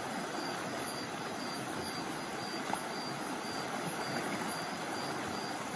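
Steady rushing and splashing of water in a shallow stream being waded through, with a faint high-pitched pulse repeating about three times a second.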